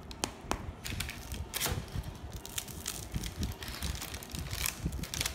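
Crisp crust of freshly baked baguettes crackling under a pressing hand, with parchment paper rustling: a run of irregular sharp crackles.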